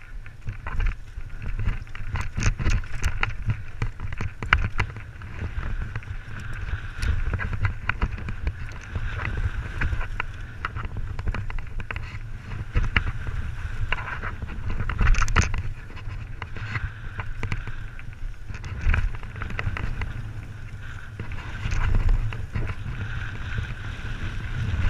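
Mountain bike ridden fast down rough, rocky singletrack: tyres running over dirt and stones with frequent sharp knocks and rattles from the bike over the bumps, under a constant rumble of wind on the camera microphone.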